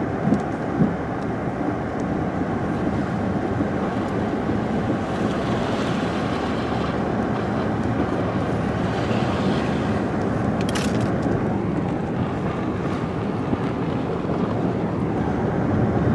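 Steady road and engine noise of a car driving through a snowstorm, heard from inside the cabin, with two small knocks about half a second apart near the start.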